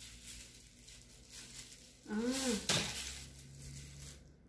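Clear plastic bag crinkling while a metal scissor-arm microphone stand is handled, with a sharp clack a little under three seconds in. A short hummed "hmm" comes just before the clack.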